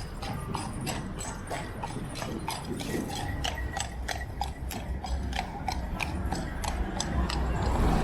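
Clip-clop of a horse's shod hooves on hard ground: a steady walking rhythm of about four hoof strikes a second, fading out near the end.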